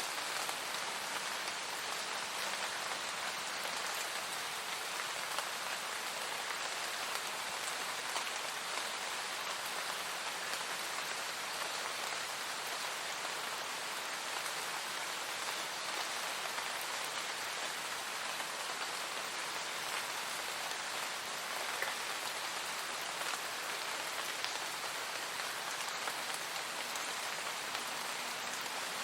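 Steady, calm rain: an even hiss of many small drops, with now and then a single louder drop.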